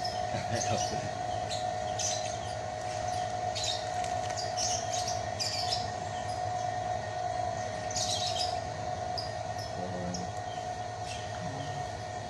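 Birds chirping in short bursts every second or two over a steady hum.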